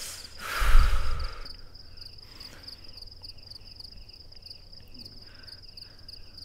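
Crickets chirping in a steady, fast-pulsing high trill. About a second in there is a short, loud rush of noise with a low thump.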